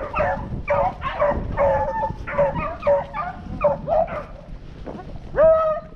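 A pack of rabbit hounds baying in a dense chorus of short, overlapping cries, with one louder, longer bay about five and a half seconds in. The hounds are running a scent trail, which the hunters take for a freshly jumped rabbit.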